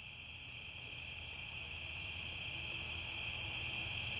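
Steady chorus of crickets trilling, growing slightly louder, over a faint low rumble, cut off suddenly at the end.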